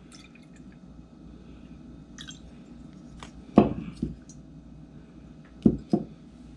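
Sake poured from a small glass bottle into a drinking glass, with faint trickling and small clinks, then the glass bottle and glass knocked down on the table: two dull knocks a little past halfway and two more near the end.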